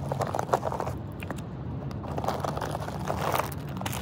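Plastic bag and food wrapper being handled, crinkling in three short bursts over a steady low hum.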